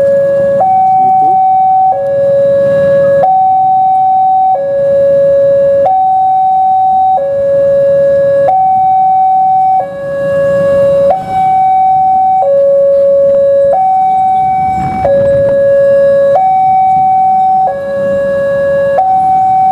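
Railway level-crossing alarm sounding its two-tone electronic warning: a higher and a lower tone alternate evenly, each held about a second and a quarter. The alarm warns that a train is coming and the barriers are down.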